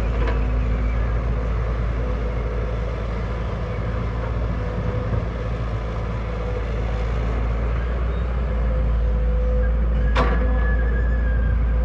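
Heavy diesel construction machine running steadily with a deep engine rumble, growing a little louder after about eight seconds. A single sharp knock sounds about ten seconds in.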